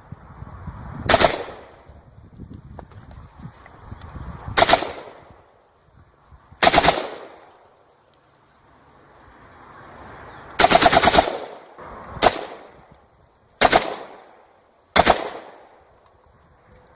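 AK-47 assault rifle firing seven short bursts, a second to a few seconds apart; the longest rapid burst comes about two-thirds of the way through. Each burst fades out with a trailing echo.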